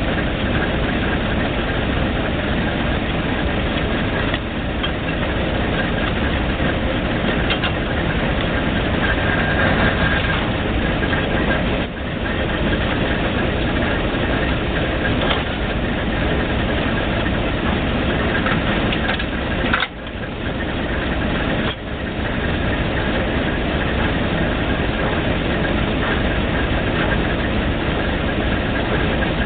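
Failling 1250 drilling rig's engine running steadily under a continuous heavy drone, dipping briefly a few times.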